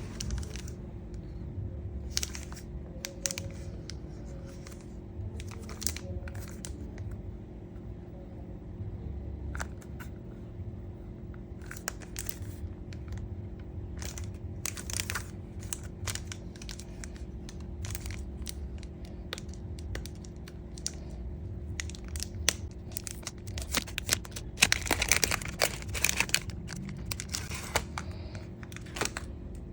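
Packaging of a boxed diecast model car being handled and opened: scattered short crinkling and tearing sounds, densest and loudest about 25 seconds in, over background music.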